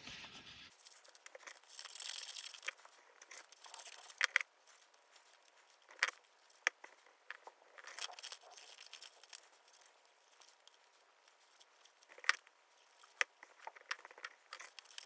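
Small scissors snipping black paper, with paper rustling and crinkling as cut pieces are handled, and a few sharp clicks scattered through.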